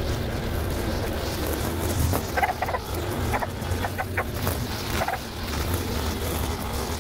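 Chickens clucking, a handful of short calls between about two and five seconds in, over a steady low hum.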